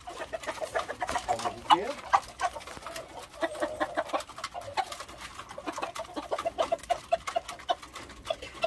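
Penned gamecocks clucking at feeding time, a run of many short, rapid clucks with scattered sharp clicks among them.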